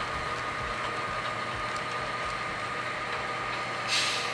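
Steady diesel-engine sound from the sound-equipped HO-scale model GP40-2 locomotives, with a constant whine and low rumble, as the model tank cars roll along the track. A short hiss comes near the end.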